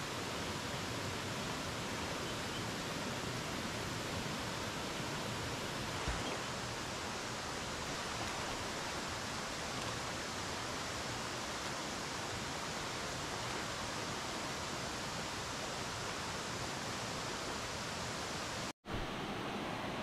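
Stream water rushing steadily over a rocky cascade into a pool, an even hiss-like wash that breaks off for an instant near the end.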